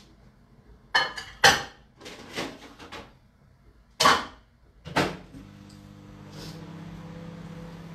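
Kitchen knocks and clacks, a door shutting among them, then about five seconds in a microwave oven starts running with a steady hum as food is reheated.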